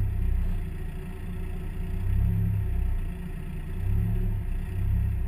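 Spec Miata race car's four-cylinder engine idling at a standstill: a steady low hum that swells and eases slightly every couple of seconds.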